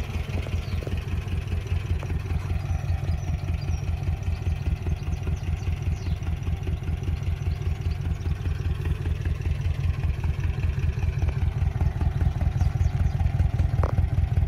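Jowett Jupiter's 1486cc water-cooled flat-four engine idling with an even, steady beat, growing a little louder toward the end.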